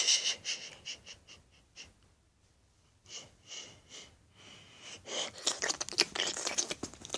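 A person's wheezy, breathy sounds in short gusts with a whistly edge, followed about five seconds in by a couple of seconds of dense rustling and handling noise.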